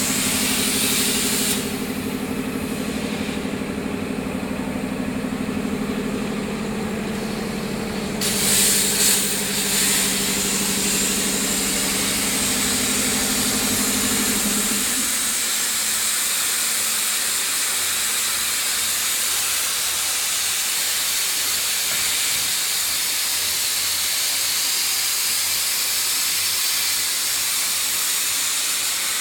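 Steady loud hiss of workshop machinery with a low hum under it; the hum stops about halfway through. The upper part of the hiss drops away a couple of seconds in and comes back several seconds later.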